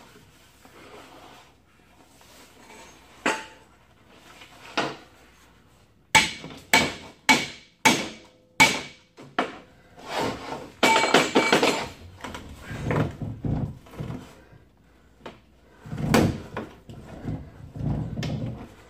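Hammer blows on metal suspension parts: two single strikes, then a quick run of five about half a second apart, then a spell of metal clattering and more scattered clanks.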